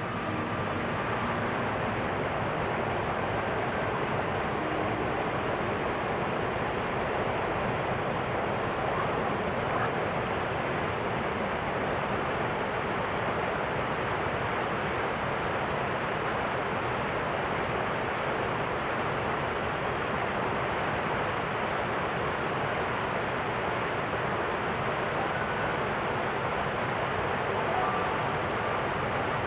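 Steady rush of water pouring over a 24-metre river waterfall, an even, unbroken noise.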